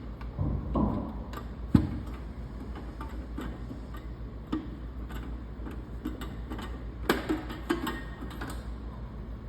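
Irregular light clicks and knocks of a metal mini tool box's drawer and its slides being handled, with a sharper click about two seconds in and a quick run of clicks near the end.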